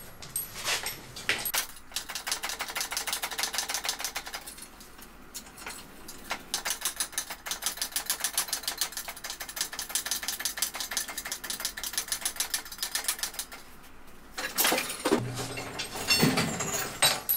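Engine hoist being moved into place: a rapid, even run of metallic clicking that goes on for several seconds, stops briefly, then resumes. A few louder clanks follow near the end.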